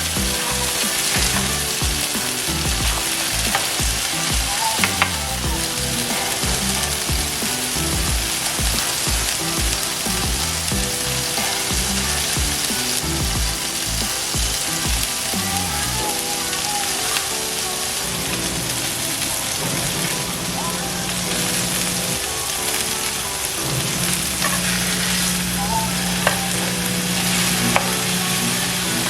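Food frying in hot fat on a griddle, a steady sizzle, with a few faint clicks.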